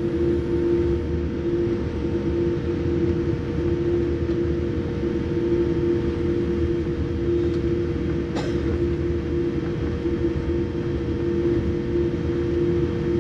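Cabin noise of a Boeing 787 taxiing: a steady engine hum with two held tones over a low rumble. A single click about eight seconds in.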